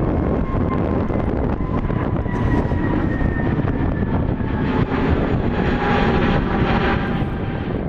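Airbus A320neo's turbofan engines at climb-out thrust as the jet passes overhead: a loud, steady jet rumble with a thin whine that slowly falls in pitch, growing brighter and fuller about five to seven seconds in.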